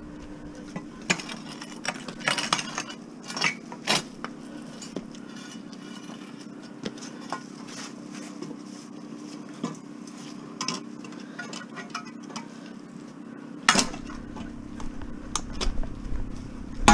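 Rusty steel angle-iron frame being handled, clinking and clanking: a cluster of metallic clinks in the first few seconds, a few scattered ticks, then one louder clank near the end. A steady low hum runs underneath.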